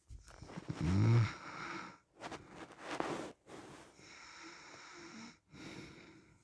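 Man snoring in his sleep: one loud pitched snore about a second in, followed by a few noisy breaths in and out.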